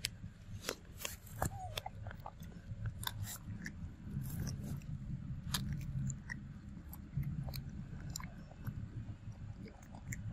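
A macaque biting into and chewing a firm green-skinned mango: sharp, irregular crunches and snaps as it gnaws chunks of skin and flesh, several a second.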